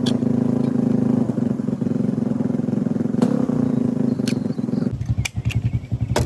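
A motor running with a steady hum. About five seconds in it shifts to a lower, rapidly pulsing sound, and a few sharp clicks sound over it.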